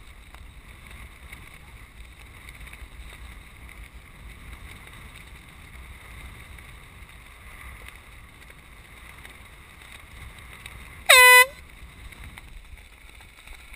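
One short, loud blast of a handheld canned air horn about eleven seconds in, sounded as a boat crosses the finish line. Before and after it, a steady wash of wind and water noise.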